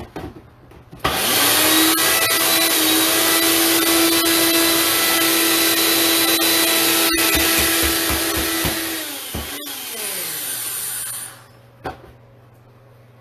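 Countertop blender motor running at full speed for about eight seconds, then winding down with its pitch falling and stopping, followed by a single click.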